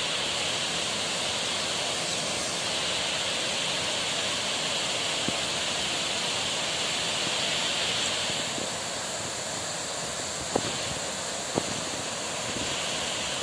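Waterfall rushing: a steady wash of falling water, its flow swollen by several days of rain. Two short clicks sound near the end.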